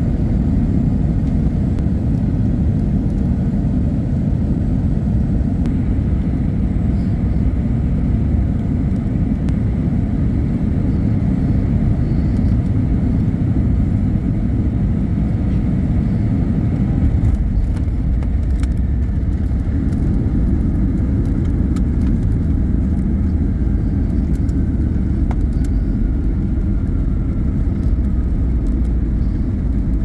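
Cabin noise of a Boeing 757-200 airliner landing: a steady rumble of engines and airflow. A little past halfway, after touchdown, the low rumble gets heavier and scattered rattles come in as the jet rolls out on the runway with its thrust reversers deployed.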